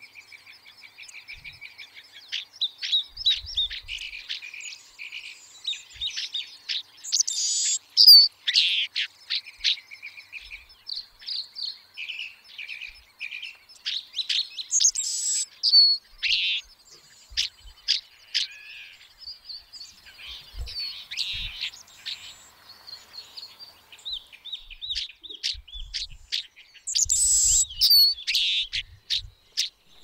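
A flock of small dark birds calling: many short, overlapping chirps and whistles, with louder sweeping calls about 7, 15 and 27 seconds in.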